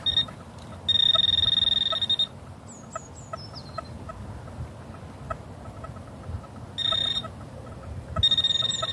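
Metal detector giving a steady high-pitched electronic tone on a shallow buried target (a coin): one long tone about a second in, a short one near the middle and another long one near the end, with faint regular ticking between them. A few brief high descending chirps from a small bird come in partway through.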